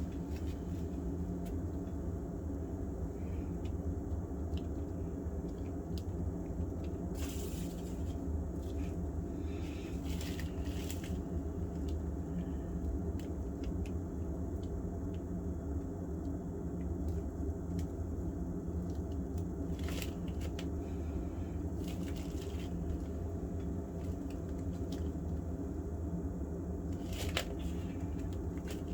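A steady low hum, with a handful of brief, soft scrapes and squishes of wet acrylic paint being worked on a board.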